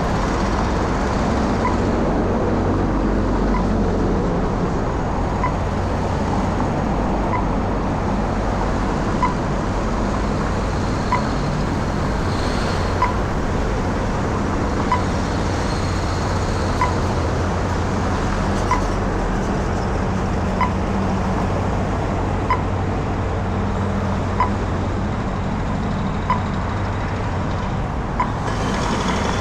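Steady city street traffic rumble, with a short, even beep about every two seconds, typical of a pedestrian crossing signal's locator tone.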